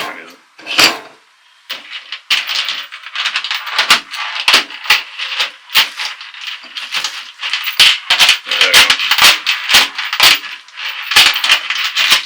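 Small metal screws rattling and clinking together in a dense, irregular stream of quick clicks. A few separate clinks come first, and the rattling becomes continuous about two seconds in.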